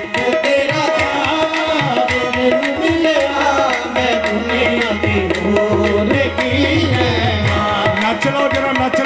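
Live qawwali music: harmoniums playing the melody over a tabla rhythm.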